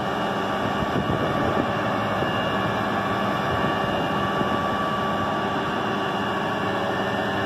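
Flatbed tow truck's engine running steadily while its winch draws a pickup truck up the tilted bed: an even mechanical drone with a steady hum.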